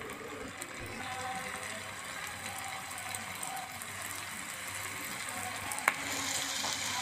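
Breadcrumbed onion rings deep-frying in hot oil, a steady sizzle that grows louder near the end as another ring goes into the oil. A single sharp click about six seconds in.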